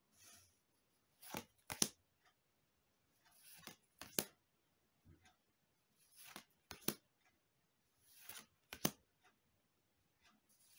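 Magic: The Gathering cards being slid one at a time off a hand-held stack: four quiet sets of a soft swish and a sharp snap, about two and a half seconds apart.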